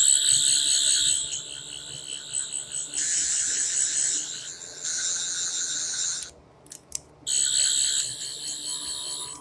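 Toy sonic screwdriver playing its high-pitched electronic warbling sound effect. It runs for about six seconds, breaks off for a second, then starts again.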